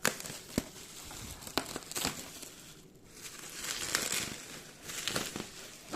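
Plastic packaging crinkling and rustling, with scattered sharp clicks and knocks, as a desktop PC is handled during unboxing. The rustling is strongest about two seconds in and again near the end.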